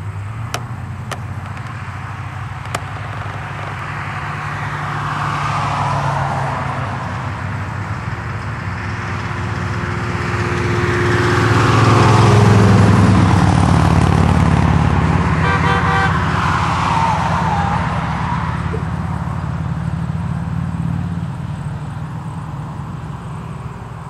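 Cars and motorcycles driving past on a highway: engines rumbling and tyre noise swelling and fading as each vehicle goes by, loudest about halfway through. A vehicle horn sounds a quick run of short toots about two-thirds of the way in.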